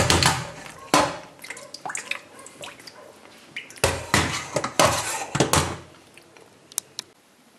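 Stainless-steel colander of blanched pork liver being shaken and knocked about in a steel sink to drain, with metal clatter and water dripping. A series of separate knocks that thin out in the last second or two.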